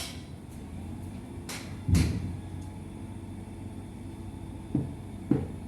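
A steady low engine hum, with one loud clunk about two seconds in.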